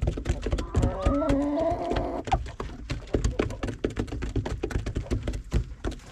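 A sheep bleats once, about a second long, starting about a second in, over a dense run of close short knocks and rustles from walking.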